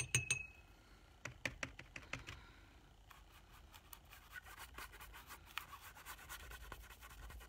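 Faint scratching and light taps of a paintbrush laying watercolor paint on paper, with a cluster of taps in the first couple of seconds.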